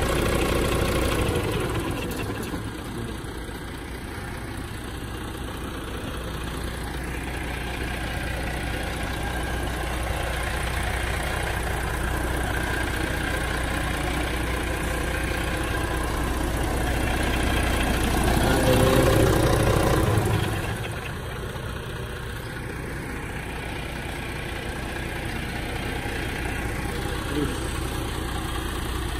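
Volvo D11 six-cylinder diesel engines of Volvo B11R bus chassis idling. The low rumble eases about a second in, swells slightly just before twenty seconds, and then drops away.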